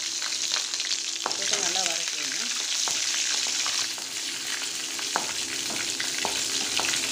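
Green chillies sizzling in hot sesame oil in a metal kadai as a tempering fries, a steady crackling hiss, while a spatula stirs them and taps against the pan several times.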